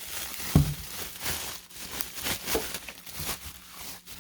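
Crinkling and rustling of plastic packaging being handled, with a single thump about half a second in.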